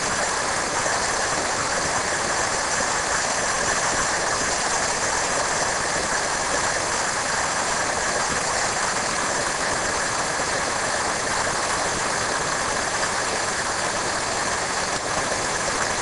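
Waterfall cascading over sloping rock ledges: a steady, even rush of falling water.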